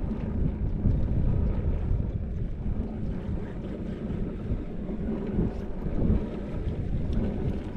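Wind buffeting the microphone, a steady low rumble that rises and falls in gusts.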